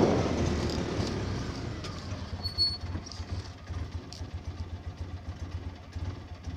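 Side-by-side utility vehicle's engine idling with a low, uneven putter, under a rush of wind noise that fades away over the first two seconds.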